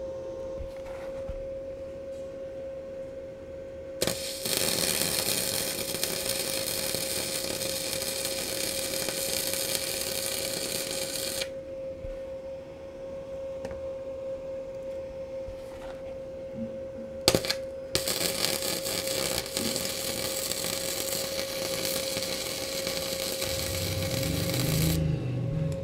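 Gasless flux-cored MIG welding with an ANDELI MIG-250ME: the arc crackles and hisses through two long passes, from about four to eleven seconds in and again from about eighteen to twenty-five seconds, with a sharp click between them. The first pass was run at too high a current and burned through the steel; the second, at a lower setting, laid a clean bead. A steady tone runs beneath throughout.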